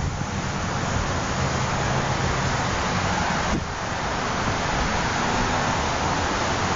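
Steady outdoor noise from street traffic on a busy road, mixed with wind rushing over a phone's microphone.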